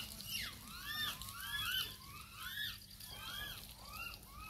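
Animal calls: a run of short, high, arched chirps, each rising then falling in pitch, about three a second and sometimes overlapping.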